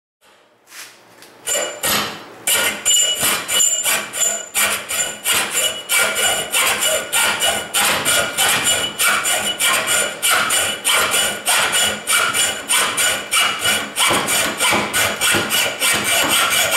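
Hand hacksaw cutting into the end of a 2-inch metal pipe nipple held in a vise, in quick, even back-and-forth strokes of about three a second, with a ringing tone from the metal under the strokes. The sawing starts about a second and a half in.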